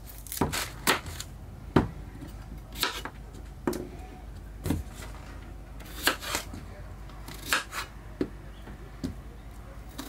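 Kitchen knife chopping cucumber on a wooden cutting board: about a dozen irregularly spaced sharp knocks as the blade strikes the board, over a steady low hum.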